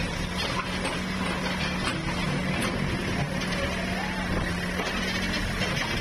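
JCB backhoe loader's diesel engine running steadily as its arm pushes down a brick wall, with some clattering of falling bricks.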